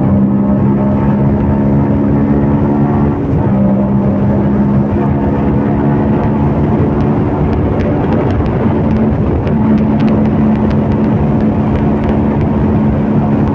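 CFMOTO Papio 125's single-cylinder four-stroke engine running while the bike is ridden, at a fairly steady pitch with rushing noise beneath it. The engine note breaks briefly about three seconds in and again around nine seconds.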